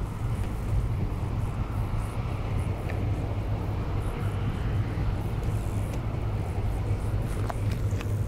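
Low, steady drone of a passing tanker's engine across the water, with a faint rushing hiss over it.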